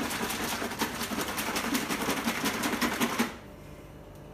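Plastic shaker bottle of Green's Maple Pancake Shake mix and water being shaken hard by hand, a rapid, even rattle and slosh of several strokes a second. It stops abruptly about three seconds in.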